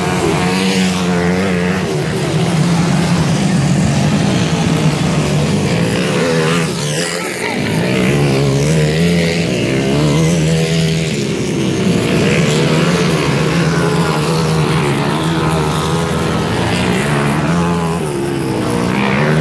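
Motocross dirt bikes' engines running hard during a race, the pitch rising and falling as riders rev and shift.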